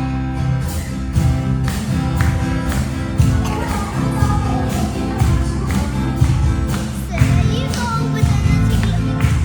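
Worship song with guitar and a steady beat, with singing.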